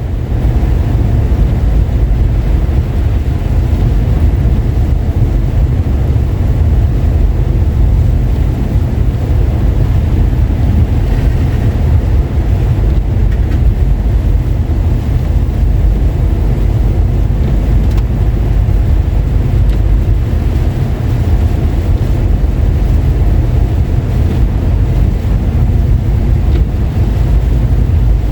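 Steady low rumble of a car driving: road, tyre and engine noise, with no distinct events.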